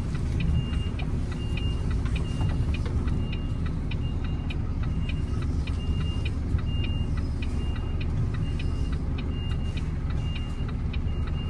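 Reversing alarm beeping steadily, about two high beeps a second, over the steady running of a Volvo FE 320 lorry's diesel engine as the truck manoeuvres slowly.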